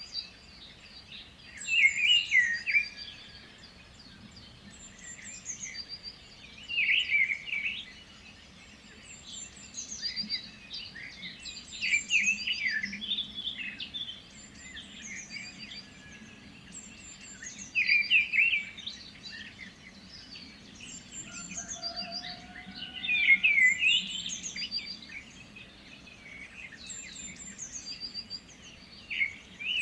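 Birds chirping and singing, with a louder song phrase about every five seconds and quicker high chirps in between.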